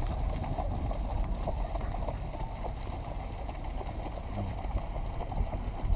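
Wind buffeting the microphone in a steady low rumble, over the wash of waves on a beach.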